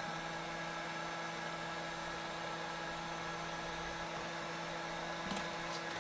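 Heat gun blowing hot air steadily, a constant hum with a faint whine, while it softens the adhesive under a tablet's screen.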